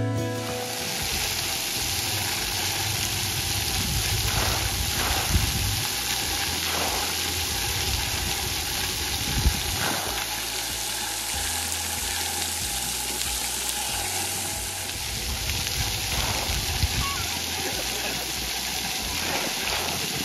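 Splash pad water jets spraying and falling onto wet pavement: a steady hiss of water.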